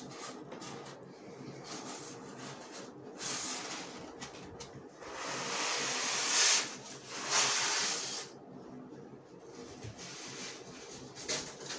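Hands scraping and rubbing along a tightly packed box and its polystyrene foam packing inside a cardboard carton. There are rough rustling stretches, loudest from about five to eight seconds in.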